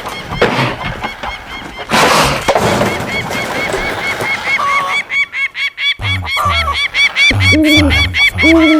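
Cartoon bird sound effects: a run of rapid high chirps, about four a second, with goose-like honking calls joining near the end. A short rushing noise comes about two seconds in.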